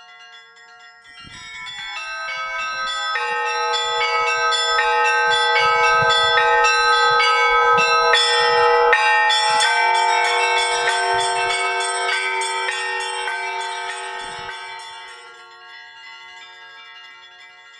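Several bells ringing together in a peal of many quick, overlapping strokes at different pitches, growing louder from about two seconds in and dying away over the last few seconds.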